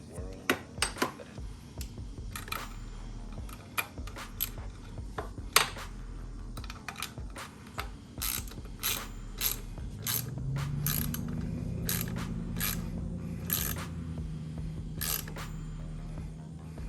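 Ratchet wrench clicking in short, irregular runs as bolts are tightened. A low steady hum rises in about ten seconds in.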